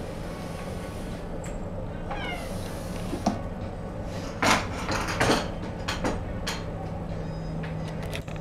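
A kitten meows once, a short, high cry falling in pitch, about two seconds in. A little later come a sharp click and several loud scuffling, scraping bursts, over a steady low hum.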